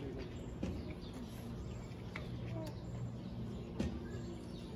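A few short bird chirps over a low, steady background hum, with scattered sharp clicks, the loudest a little under four seconds in.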